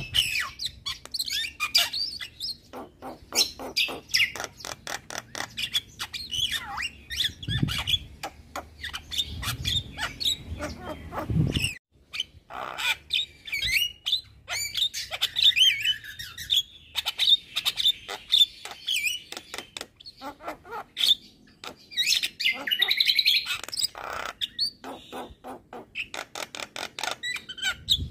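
Javan myna (jalak kebo) singing vigorously: a rapid, unbroken stream of harsh clicks, chatters and warbled whistles.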